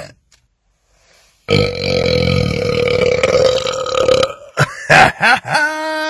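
A man's long, loud belch, starting about a second and a half in and held at one steady pitch for nearly three seconds. It is followed by a few short vocal sounds near the end.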